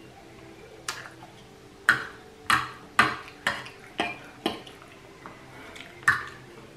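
Metal fork clinking against a plate as food is picked up: eight sharp clinks, six of them about half a second apart in the middle and one more near the end.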